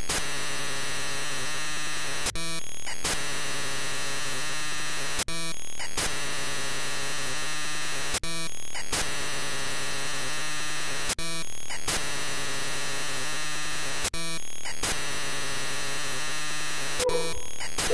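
A steady static-like hiss with a low hum, the added noise of an old-film slideshow effect. It drops out briefly with a click about every three seconds.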